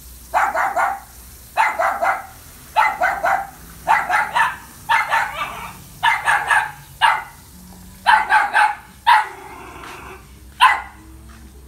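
A dog barking over and over in short bouts of a few quick barks, about one bout a second.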